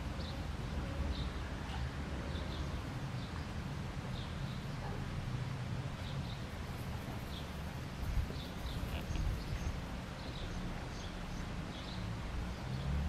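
Garden ambience: small birds chirping in short, scattered calls over a low, steady rumble.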